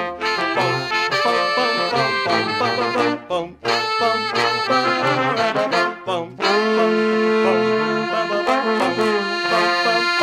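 Background music: an instrumental passage led by brass and saxophone, with held notes.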